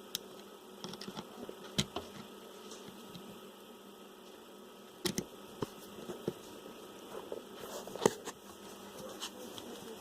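Scattered sharp clicks and knocks of hand work on parts, three of them louder and spread through, over a faint steady hum.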